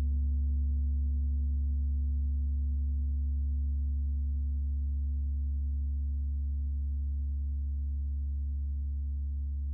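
32-inch Tree of Life gong ringing on after a strike: a deep, steady hum with a fainter higher overtone above it, slowly fading away.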